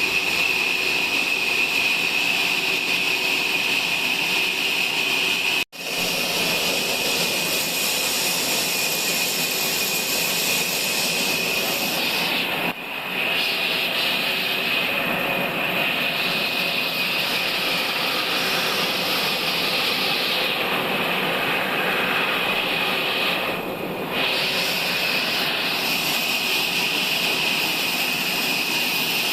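Sawmill saw running steadily through log cutting, a high whine over its noise. The sound cuts out for an instant about six seconds in, and dips briefly twice later on.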